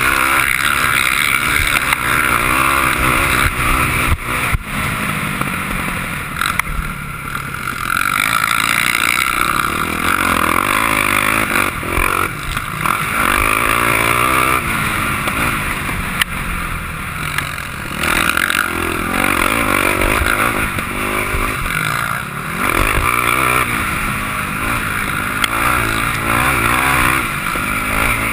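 Sport quad's engine, heard from a camera mounted on the quad, running hard under throttle with its pitch rising and falling as the rider accelerates and backs off, dipping briefly every few seconds.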